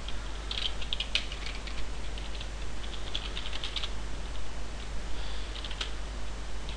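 Computer keyboard typing in three short runs of keystrokes with pauses between.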